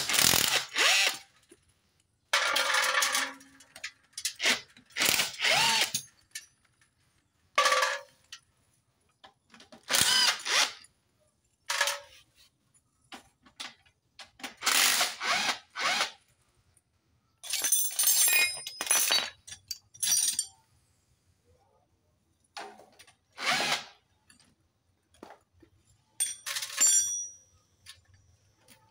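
A power driver with a socket spins off the exhaust mounting bolts in about a dozen short bursts, some with a rising whine as the motor spins up.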